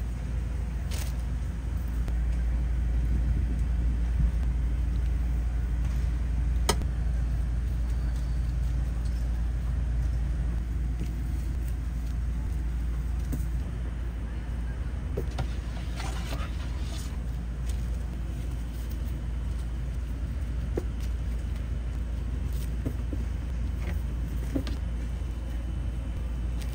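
An engine running with a steady low hum, and a few faint clicks and taps over it.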